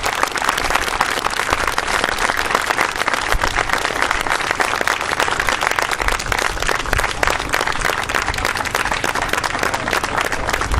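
A small group of people applauding, many hands clapping steadily.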